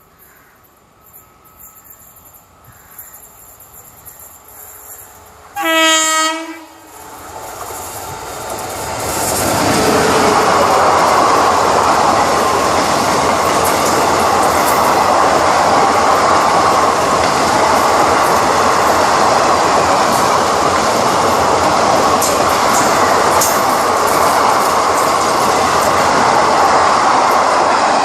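Express train horn sounding once for about a second, about six seconds in, then the train closing in and passing at speed: a loud, steady rush of wheels on rails that builds over a few seconds and holds.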